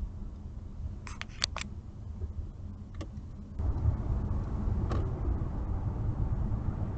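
Car cabin noise heard through a dashcam: a steady low road and engine rumble at low speed, with a quick cluster of sharp clicks a little after a second in and another click near three seconds. Past the halfway point the rumble jumps louder and stays there as steady motorway road noise.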